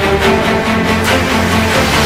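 Background music with sustained notes.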